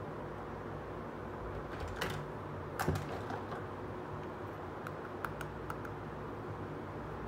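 Small hard plastic toy pieces clicking and tapping as they are handled and set down: a couple of sharper clicks about two and three seconds in, then a few light ticks, over a steady background hum.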